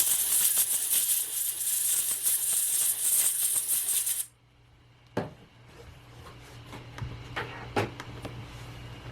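Canned compressed air blasting into a phone's charging port in a steady hiss for about four seconds, then cutting off suddenly. A few small clicks and scrapes follow.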